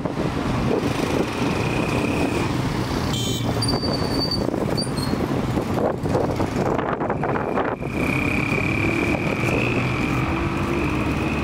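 Street traffic: cars and other motor vehicles running and passing in a steady din, with a couple of short high-pitched tones about four seconds in.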